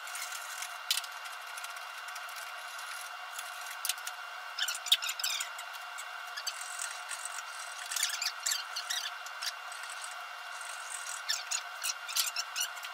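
Hand woodworking at a bench: scattered scrapes, clicks and light knocks of wood and hand tools being handled and worked at the vise, coming in short clusters with a sharp knock about five seconds in. Under it runs a steady workshop hum.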